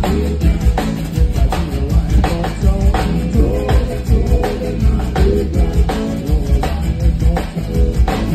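Live zydeco band playing: a Cajun-style button accordion carrying the melody over a steady drum-kit beat.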